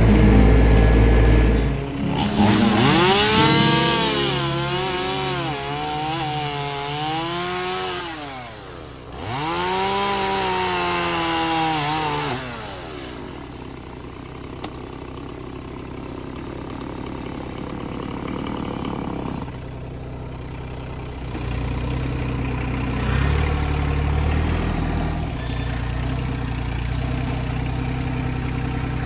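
Gas chainsaw cutting through fallen tree logs in two long cuts, its pitch sagging under load and rising again. After a quieter stretch, the RK25 compact tractor's engine runs steadily near the end.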